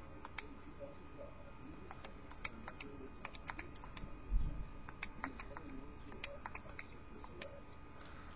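Irregular series of short, light key clicks, like keys being pressed off-camera, with a single dull low thump about four seconds in.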